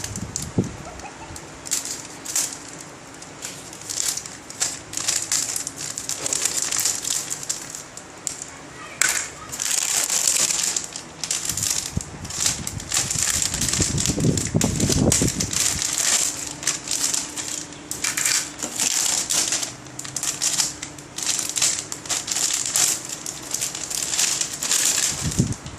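Plastic packaging crinkling and rustling in many short, irregular crackles as the model kit's parts and bags are handled.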